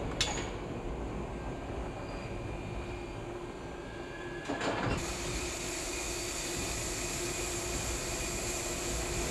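Subway train running along the track: a steady low rumble with a faint steady tone. A sharp click comes just after the start and a short clatter of wheel clicks about halfway, then a steady hiss joins the rumble.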